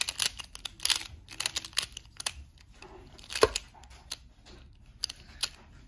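MoYu Weilong maglev Pyraminx being turned by hand: quick plastic clicks and snaps as the layers turn and its strong magnets pull them into place. The clicks come in irregular clusters, and the loudest is about three and a half seconds in.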